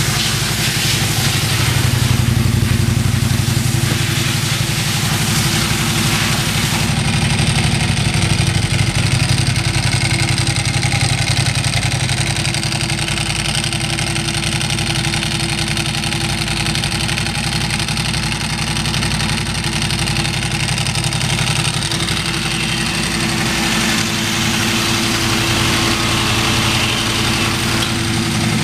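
2005 Ducati Multistrada 1000 DS's air-cooled L-twin engine running steadily at idle, a little louder over the first several seconds.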